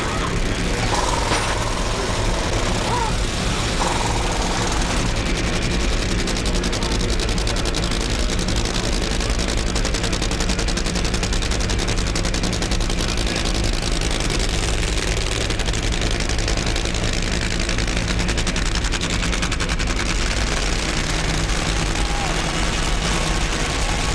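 Nitromethane-burning funny car engines, supercharged V8s, running hard with a dense, rapid crackle of firing that stays steady and loud throughout.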